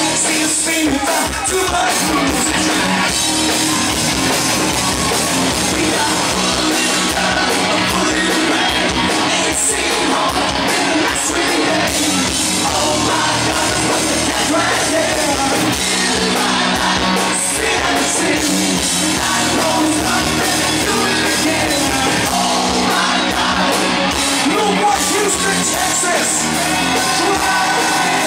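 Live hard rock band playing with a male lead singer, loud.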